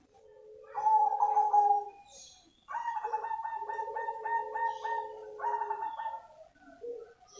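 Zebra dove of the black cemani strain cooing. There are two phrases: a short one about a second in, then a longer one of quick stuttering notes lasting about three seconds.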